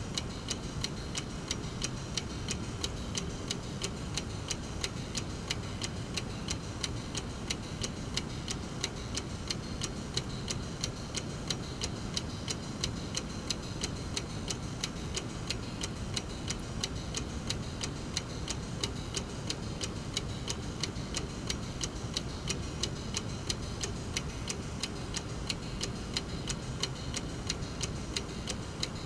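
Brass mechanical clock movement ticking steadily, the escapement giving evenly spaced ticks at a constant rate.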